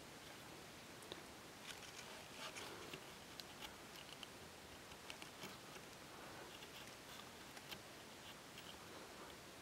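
Faint scraping and small irregular clicks of a knife blade shaving and nicking the fibrous cut end of a green bamboo tube.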